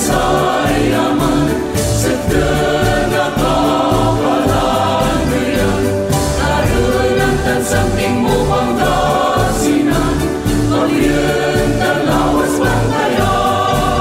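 A choir singing a song in Pangasinan, with sustained sung lines over instrumental accompaniment.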